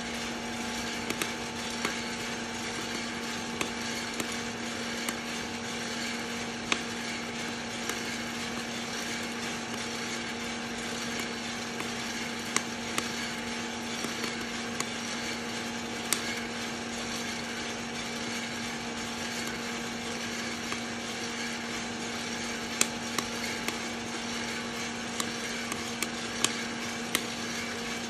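Hottop coffee roaster running with a steady motor and fan hum. Coffee beans in the drum crack with scattered sharp pops, fewer than one a second and irregularly spaced: the beans are in first crack.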